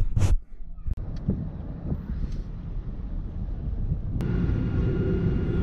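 A couple of sharp bursts, then a low rumbling noise; about four seconds in, a sudden cut to the steady hum of an airliner's jet engines, with several held tones.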